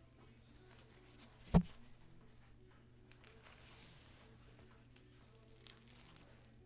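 One sharp knock about a second and a half in, over a faint steady hum, with a couple of faint ticks near the end.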